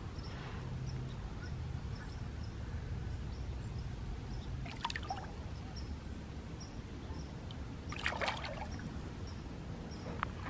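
Lake water trickling and lightly splashing as a largemouth bass is released by hand at the surface, with brief small splashes about five and eight seconds in.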